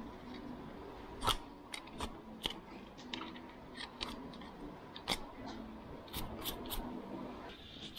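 A hoof pick scraping and clicking against a pony's hoof and metal shoe as the hoof is picked out, in a series of sharp, irregular strokes.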